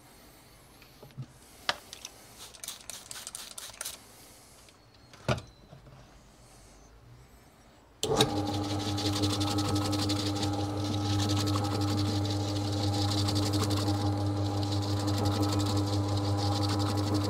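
A few clicks and knocks as the bowling ball is handled on the spinner. About eight seconds in, the bowling ball spinner's motor starts suddenly and runs steadily with a low hum and a hiss, as a grey Scotch-Brite pad sands the spinning ball's surface.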